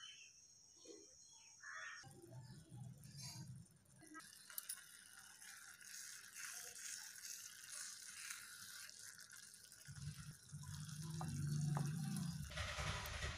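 A small wooden spoon stirring and clicking against a miniature clay pot of simmering dry fish gravy, over a steady sizzling hiss. For the first two seconds, before the stirring starts, there is only outdoor ambience: a steady high whine and a few chirps.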